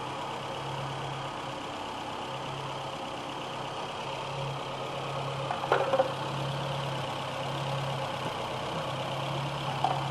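Volkswagen Rabbit's CIS fuel-injected four-cylinder engine idling warm, a steady hum with a single sharp click about six seconds in.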